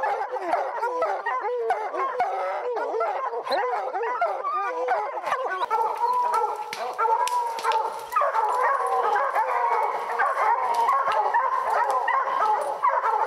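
A pack of bear hounds baying at a tree, many voices overlapping without a break: tree barking, the sign that the hounds have treed a black bear.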